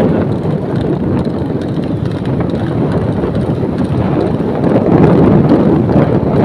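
Wind rushing and buffeting over the microphone of a phone carried on a moving motorcycle, with motorcycle engines running underneath.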